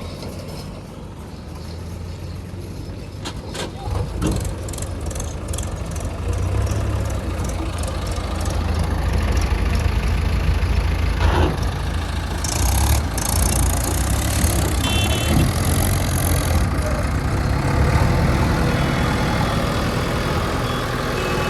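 Heavy diesel engine running steadily at a low pitch, growing louder about four seconds in. There are a few knocks near the start, and a hiss for a few seconds just past the middle.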